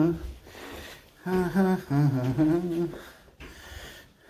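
Someone humming a tune to themselves: short phrases of held notes that step up and down in pitch, with a pause between them.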